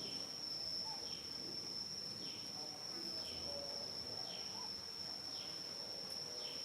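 Insects droning on one steady high note, with a short falling chirp repeating about once a second.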